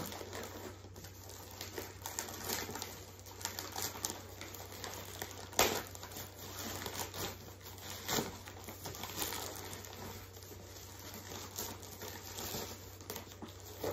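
Plastic poly mailer bag crinkling and rustling as it is handled and opened by hand, with many irregular crackles. Two sharper snaps stand out, about five and a half and about eight seconds in.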